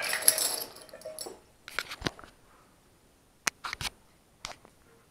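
A cowbell and a jingle tambourine being handled and set down on a countertop. A short, hissy jingling rattle comes first, then a few scattered light knocks and clicks.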